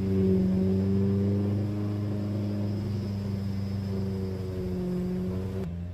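Log skidder's engine running steadily as it goes by, over the steady drone of engine noise at the sawmill. The sound changes abruptly near the end.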